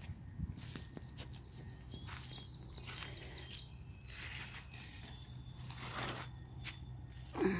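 Quiet outdoor garden ambience: a few faint small bird chirps and scattered light clicks and rustles over a low steady hum, with a louder rustle near the end.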